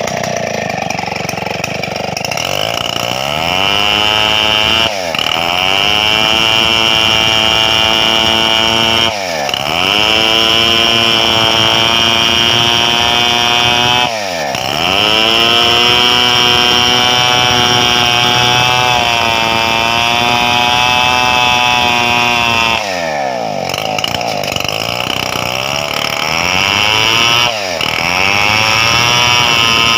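Stihl 070 two-stroke chainsaw running hard as it saws through a wide gmelina board. Its pitch drops sharply about five times and climbs back each time, as the throttle eases off and opens up again.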